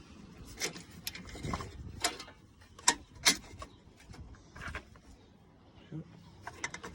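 Scattered clicks and light knocks of the radiator support crossmember being positioned and lined up on the car's front end, with two sharp clacks about three seconds in the loudest.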